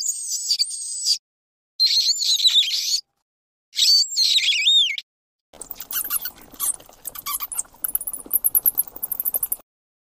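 Bat squeaking: three short runs of high, thin calls that sweep up and down in pitch, separated by brief silences, followed from about halfway by a stretch of rapid clicks and chirps that cuts off near the end.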